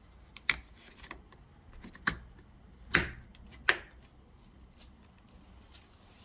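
Sharp clicks and knocks from handling a smart deadbolt and door, four louder strokes spread over the first four seconds with lighter ticks between.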